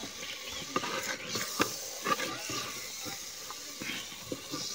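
Wooden spoon stirring thick curry in a clay pot, with irregular knocks and scrapes against the pot over a steady hiss of simmering.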